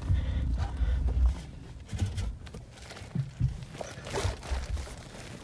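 Handling noise and rustling as a person crawls through attic insulation with a phone held close: a low rumbling of the phone being rubbed and jostled for about the first second, then scattered dull knocks and brief brushing rustles.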